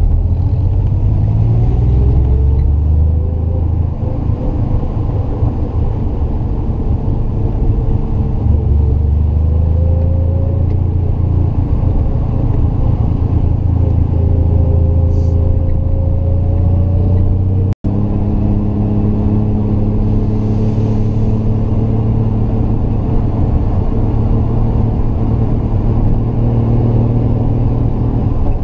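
Triumph GT6 Mk2's two-litre straight-six running under load on a steady climb, its note rising several times as the car pulls through the gears. The sound cuts out for an instant about two-thirds of the way through.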